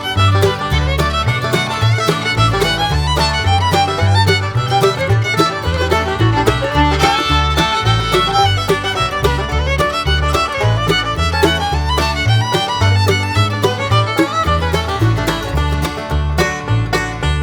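Upbeat bluegrass music with fiddle and banjo over a steady bass line.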